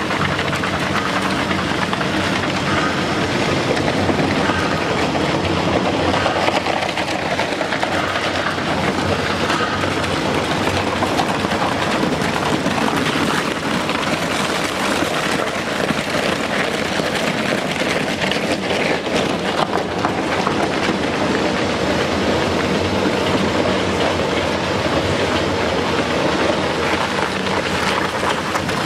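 Double-shaft shredder running under load, its two toothed shafts tearing up woven bags: a steady, dense mechanical grinding with constant clatter over a low motor hum.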